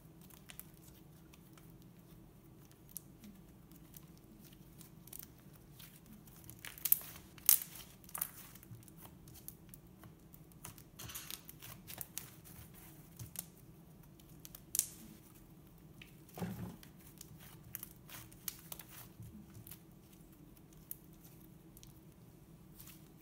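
Thick slime being stretched, squeezed and pressed by hand, giving off scattered sticky crackles and pops, with louder ones about seven seconds in and near fifteen seconds. There is a soft thump a little after sixteen seconds.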